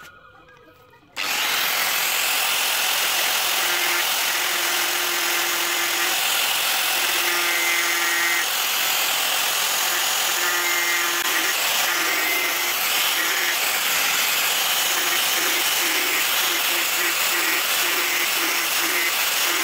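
Angle grinder switched on about a second in and running steadily as its abrasive disc sands a carved wooden knife handle, with a mid-pitched hum that breaks in and out over the steady grinding noise.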